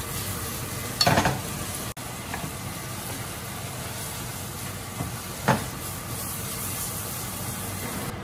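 Ham, egg and red pepper stir-fry sizzling in a nonstick skillet as it is stirred with a wooden spatula, with a steady hiss. There is a louder burst of stirring noise about a second in and a sharp knock about five and a half seconds in.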